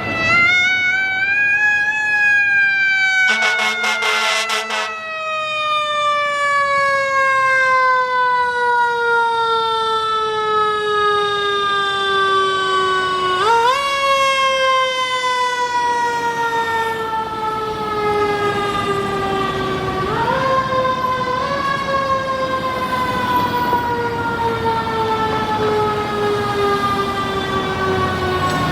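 Fire truck's siren winding slowly down in pitch, pushed back up sharply about halfway through and again twice later, with a brief harsh blast about three seconds in.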